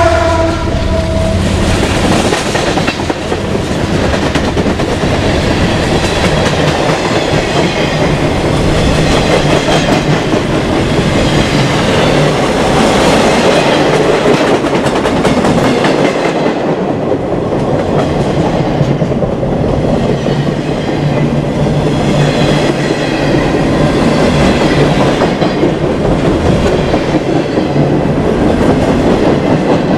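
Freight train rolling past close by: steady rumble of steel wheels on rail, with clickety-clack over the rail joints. A locomotive goes by in the first second or two, its engine giving a brief hum, and then the freight cars follow with faint high-pitched wheel whine.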